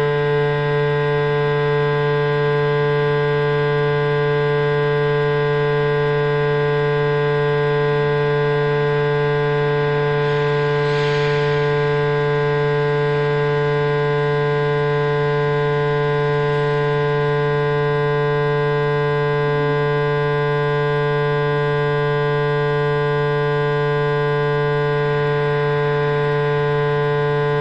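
Loud, steady drone made of many held tones stacked together, unchanging throughout, with faint voices underneath.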